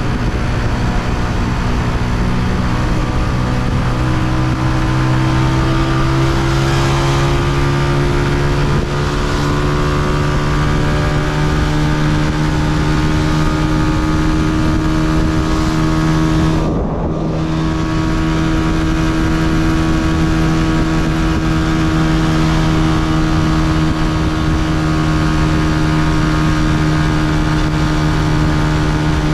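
Honda CG125's single-cylinder four-stroke engine running under way, its pitch rising a few seconds in and then holding steady. About two thirds of the way through it eases briefly, as with a throttle lift or gear change, then picks up again.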